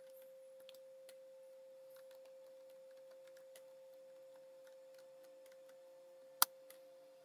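Faint computer keyboard typing, a scatter of soft key clicks, with one sharper, louder click near the end. A faint steady tone runs underneath throughout.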